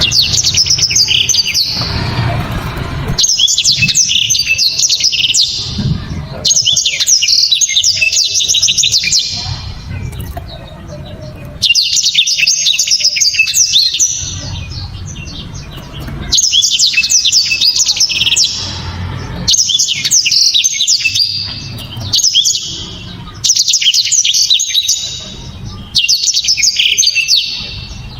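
Blackthroat (black-throated canary) singing: about eight loud, fast, high twittering song phrases of two to three seconds each, with short pauses between them, over a low background rumble.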